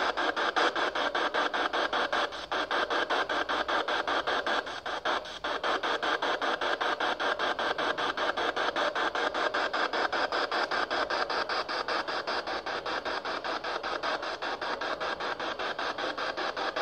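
PSB7 spirit box sweeping rapidly through radio stations: a steady hiss of static chopped several times a second, with brief dips about two and five seconds in.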